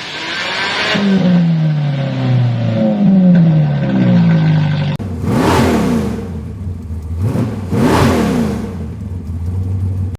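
A car engine revving, its pitch dropping in several steps. Then two loud, fast pass-bys, about two and a half seconds apart, with the engine pitch sweeping sharply as each goes by.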